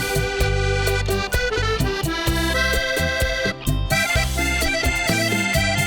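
Instrumental passage of a vallenato song arranged for symphonic band: sustained melody notes over a pulsing bass line, with no singing.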